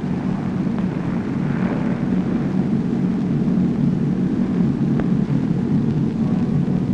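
Steady drone of B-17 Flying Fortress bombers' four radial piston engines in flight. There is a faint click about five seconds in.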